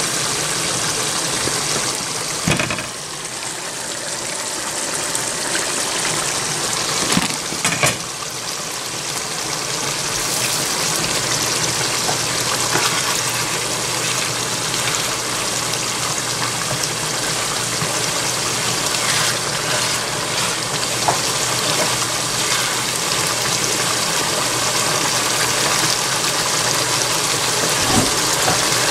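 Chicken and bora beans simmering in sauce in a non-stick skillet, bubbling and sizzling steadily as the sauce cooks down. A spatula knocks and scrapes against the pan a few times, about two and a half seconds in, around eight seconds in, and near the end.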